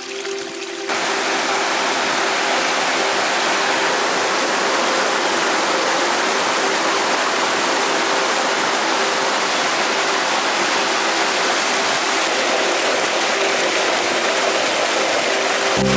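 Waterfall: a steady rush of falling water that gets louder about a second in and then holds even.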